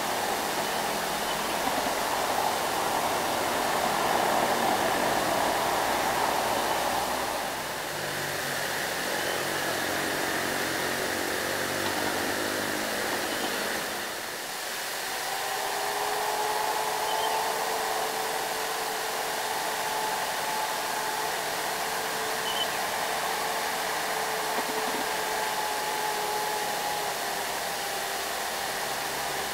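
Loaded light diesel trucks running past on a hill road, under a steady rushing noise. The sound dips briefly about a quarter of the way in and again near the middle, and a steady whine runs through the second half.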